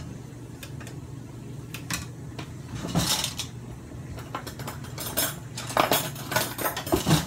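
Kitchenware clinking and knocking: a few scattered metal and dish clicks, with a cluster of louder knocks near the end.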